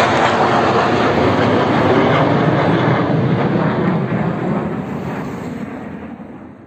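Sukhoi fighter jets passing overhead, their engines' roar fading steadily over the last few seconds as they fly away.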